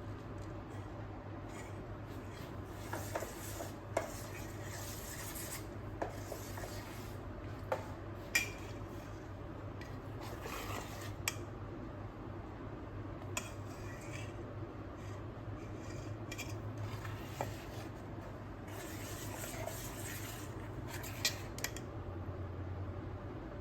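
Kitchen utensil scraping and clinking against cookware in irregular strokes, with a dozen or so sharp taps, over a steady low hum.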